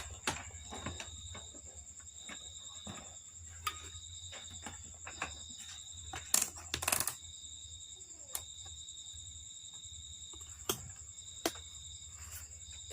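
Scattered small metallic clicks and taps as multimeter test probes and tools are handled on the TV's circuit board, the loudest two about six to seven seconds in. Crickets trill steadily behind.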